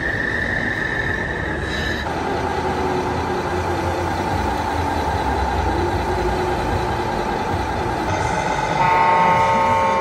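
Steady background noise with a constant tone, then about a second before the end a loud air-horn chord of several notes blown from a radio-controlled model truck's sound unit.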